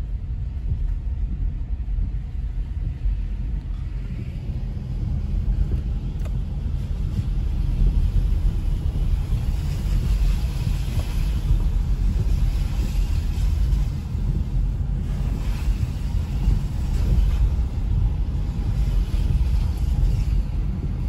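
Car driving on a wet road, heard from inside the cabin: a steady low rumble of engine and tyres. A hiss of tyres on the wet surface grows louder from about a third of the way in.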